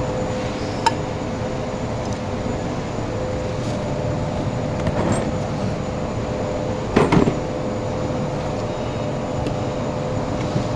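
Workshop machinery running with a steady hum and a constant tone, with a sharp click about a second in and a brief cluster of metallic knocks about seven seconds in.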